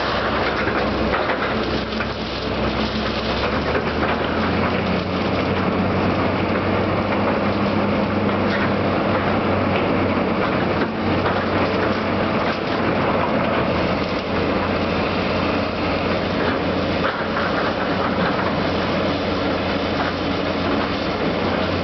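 Heavy demolition machinery's diesel engine running steadily under a dense, continuous noise.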